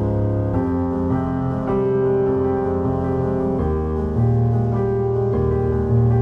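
Background music: slow, sustained piano chords that change every second or so.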